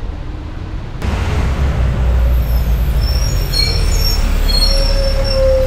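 City bus engine running with a loud low rumble that starts suddenly about a second in, with short high squealing tones over it from about three seconds in.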